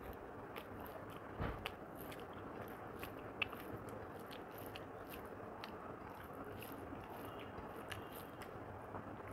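Faint, close-miked eating sounds: chewing with scattered small clicks and smacks while fingers mix rice on a plate, with a soft knock about a second and a half in.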